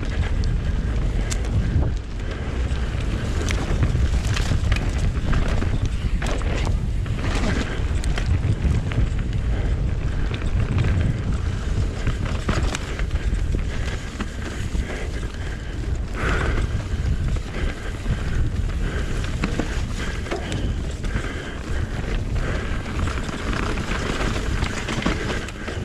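Wind buffeting the mountain-bike rider's camera microphone during a fast trail descent, with frequent rattles and knocks from the bike over rough ground.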